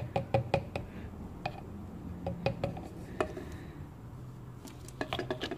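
Quick run of light plastic taps and clicks, about five a second, as an upturned plastic bottle is shaken over another bottle to empty the last of its liquid; the run stops about a second in, and a few scattered clicks follow as the bottles are handled.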